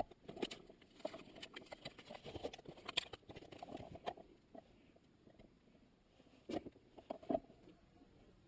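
Faint hand-handling noises while a bead of RTV silicone is laid around a manual transmission's shifter opening. Scattered light clicks and taps are followed by two sharper clicks near the end.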